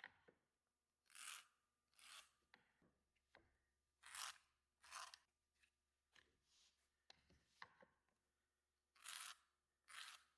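Faint, short rasping strokes of hand work on door frame material, coming in three pairs, each pair about a second apart, with small ticks and taps between.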